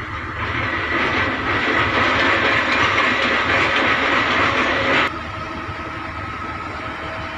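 Heavy construction machinery working hard: a loud hissing mechanical noise with a steady whine that builds for about a second and cuts off suddenly about five seconds in, over a low engine rumble that carries on.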